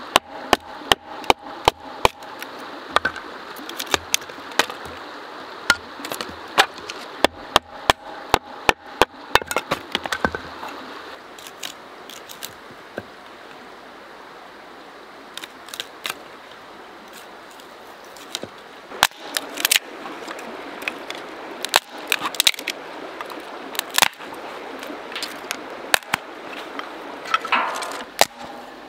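Sharp wooden cracks and knocks of kindling and firewood being broken up for a campfire, coming a few times a second for the first ten seconds or so, then more sparsely. A steady rush of a creek runs underneath.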